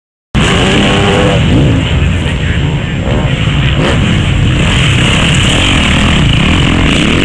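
Motocross bike engines running hard and revving as a bike passes on the dirt track, loud, starting abruptly about a third of a second in.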